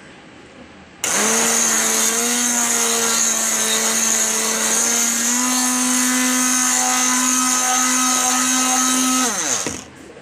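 Handheld electric mixer switched on about a second in, running steadily as its beater whips a liquid chocolate ice cream mixture, its whine stepping up slightly in pitch partway through. Near the end it is switched off and winds down with a falling whine.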